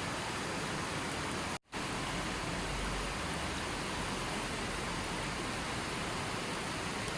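Steady, even rushing of running water, cut off completely for a split second about one and a half seconds in.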